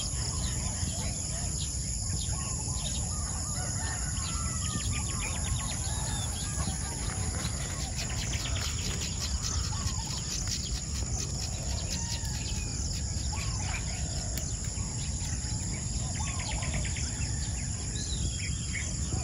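Outdoor ambience: a steady high-pitched insect drone with birds calling now and then, over a low steady rumble.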